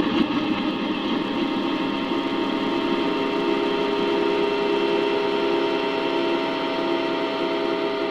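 A Yamaha PSR-E233 keyboard's built-in sound effect layered over itself a huge number of times, merged into a dense, steady drone of many held tones.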